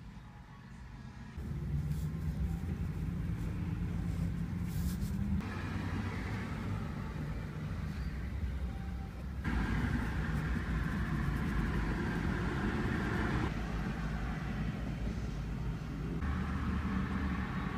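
Road traffic noise: a steady low rumble of car engines and tyres, in stretches that change abruptly every few seconds.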